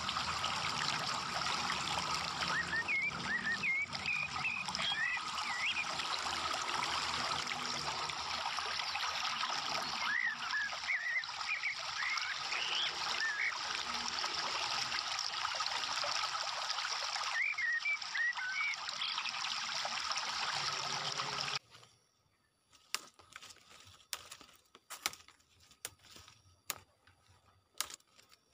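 Steady trickling water with clusters of short high chirps, cutting off suddenly about three-quarters of the way through. After that it is quiet apart from scattered sharp clicks.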